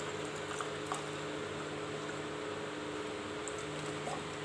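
Steady low electrical hum over a faint even hiss, the room's background noise, with a couple of faint ticks.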